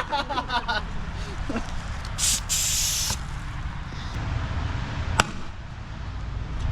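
Airsoft gas grenade going off: a burst of gas hissing for about a second, a couple of seconds in. A single sharp click follows about two seconds later.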